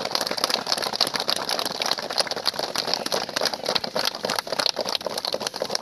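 A crowd clapping, a dense steady patter of many hands.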